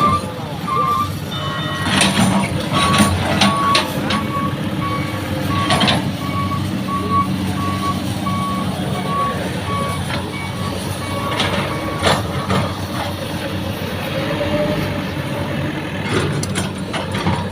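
A backup alarm beeps repeatedly, about one and a half beeps a second, then stops about ten seconds in, over a heavy diesel engine running steadily. Sharp metallic knocks and clanks come now and then.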